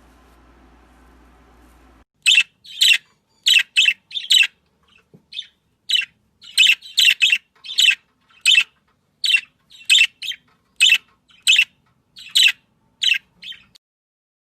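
A bird chirping, a string of short, sharp, high-pitched calls at about one or two a second, starting about two seconds in.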